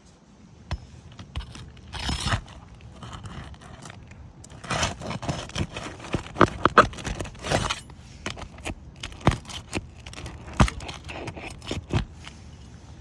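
Roofing tool scraping and prying at asphalt shingles and roofing nails, with irregular scraping and scattered sharp knocks and clicks, the loudest in the middle of the stretch.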